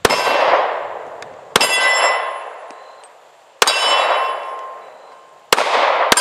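Five pistol shots from a Smith & Wesson M&P 40c in .40 S&W with an Apex trigger, the last two about half a second apart. Each shot is followed by a metallic ringing that dies away over about a second.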